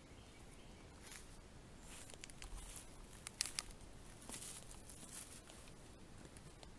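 Faint rustling and crunching with scattered sharp clicks, sharpest around the middle, from someone moving about with a handheld camera.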